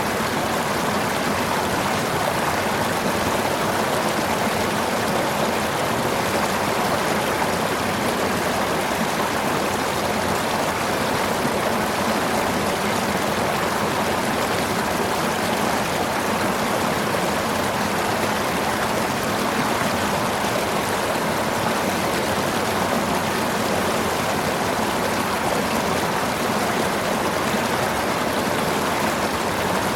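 River water flowing steadily over stones, a constant rushing and babbling.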